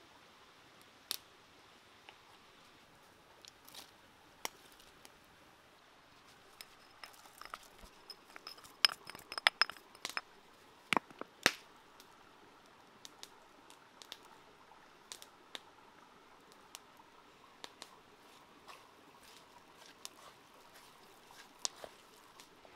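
Red chillies being chopped and crushed on a flat stone: scattered sharp clicks and taps, with a run of loud knocks about nine to eleven seconds in.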